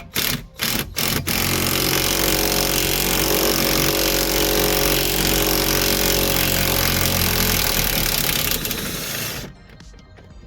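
A few sharp knocks, then a power tool runs steadily for about eight seconds and cuts off, undoing the last bolt of the front wheel bearing hub assembly.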